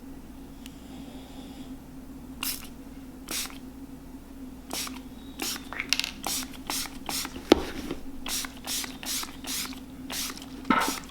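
Spray bottle of leather protector being squirted onto a leather boot in a quick series of short hissing sprays, a dozen or more, starting about two seconds in.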